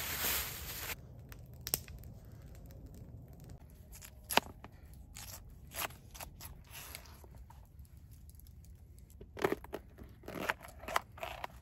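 Brief rustling of a bag for about a second, then a knife slicing raw potato and green pepper on a plastic cutting board: scattered sharp clicks and crunchy cuts as the blade meets the board, with one louder knock and a quick run of cuts near the end.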